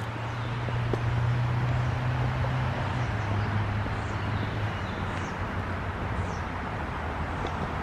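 Outdoor ambience: a steady low hum that drops slightly in pitch about three seconds in and then fades, with a few faint, short falling bird chirps.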